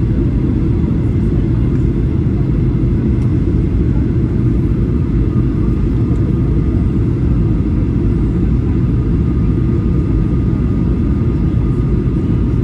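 Steady, loud low rumble of aircraft engines, unchanging throughout, with a faint steady whine entering about halfway through.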